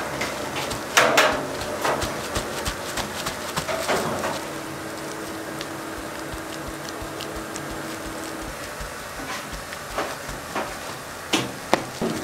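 Rice cake shop work sounds: irregular knocks and clicks of tools and trays being handled, with a steady hum from about a third of the way in to about two-thirds of the way in.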